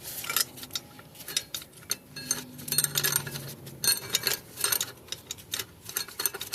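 Metal parts of a pit bike's rear wheel assembly clinking and tapping as they are handled and fitted together: many short, irregular clicks and knocks.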